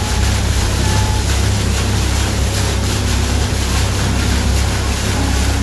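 Pontoon boat under way: water rushing and splashing off the nose of the pontoon float as it cuts through choppy water, over a steady low rumble.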